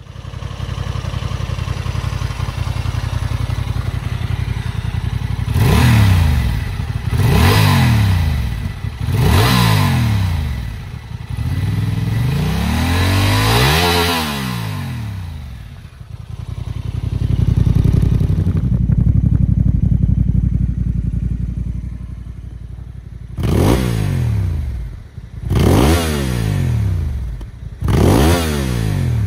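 Honda Transalp 755cc parallel-twin engine idling and revved by hand at a standstill: on the stock exhaust, three quick throttle blips, then one longer rev that climbs and falls back to idle. In the second half it idles and gives three more quick blips through a Yoshimura RS-12 ADV slip-on exhaust.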